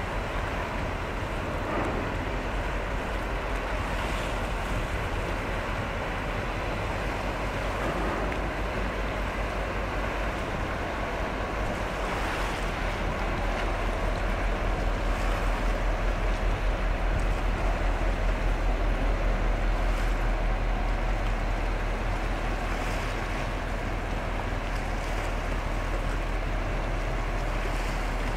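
Low, steady rumble of a ship under way, with water wash and wind, swelling in loudness around the middle and easing off again.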